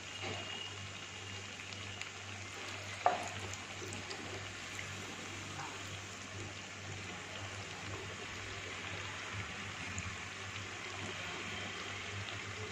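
Sabudana vadas deep-frying in hot oil in a nonstick pan, sizzling steadily. There is one sharp knock about three seconds in.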